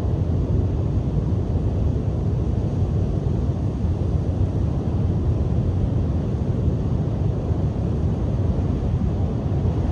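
Strong sea wind buffeting the microphone in a steady low rumble, with surf breaking on the shore beneath it.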